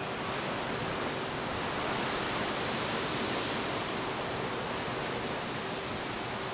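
Gale-force wind of Storm Ophelia rushing through a garden hedge and trees, leaves rustling. It swells into a stronger gust about three seconds in, then eases.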